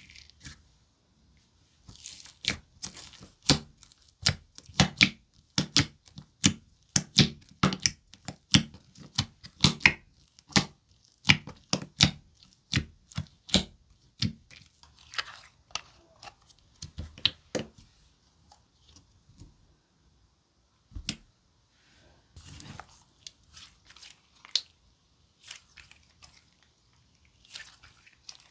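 Thick cookie-dough slime, a blend of wood, Amazon, clear and clay slimes, being stretched and pressed by hand. It gives a quick run of sharp pops and crackles that thins out to scattered pops in the second half.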